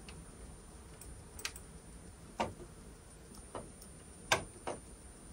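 A computer mouse clicked about five times at uneven intervals, faint and sharp, the loudest click a little after four seconds in.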